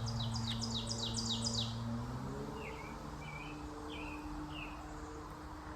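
Wild songbirds singing: a fast run of short descending chirps for the first couple of seconds, then four slower, lower notes. A steady low engine hum from traffic runs underneath and shifts in pitch a little past two seconds in.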